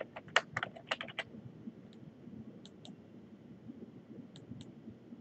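Computer keyboard typing: a quick run of about ten keystrokes in the first second or so, then two pairs of fainter clicks a couple of seconds apart, typical of a mouse button clicking a search button.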